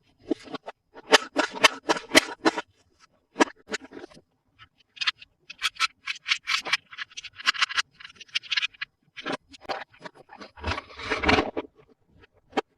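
Hands unboxing and handling plastic toy pieces and packaging: a run of short, irregular scratches, scrapes and clicks, with a few brief pauses.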